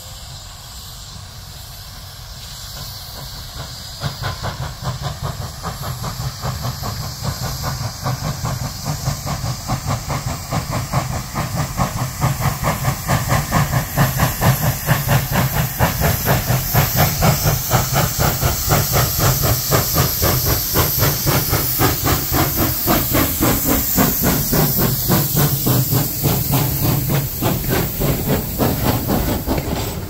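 Pennsylvania Railroad B4a-class 0-6-0 steam switcher No. 643 working past with a short train, its exhaust chuffing in a quick steady rhythm over hissing steam. The sound grows louder from about four seconds in, and the open cars roll by near the end.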